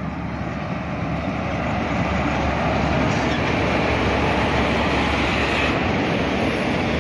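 A WAP-4 electric locomotive hauling a passenger train passes close by: a steady rush of train noise that builds over the first two seconds, then holds loud as the locomotive and coaches go past.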